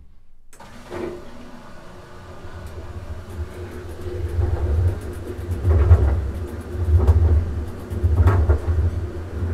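GE Adora top-load washing machine starting up about half a second in and running empty, its newly replaced agitator and coupling working with a low rumble that swells in regular surges about every second and a half and grows louder. It is a little loud because there are no clothes in the tub, and it rings in the small laundry room.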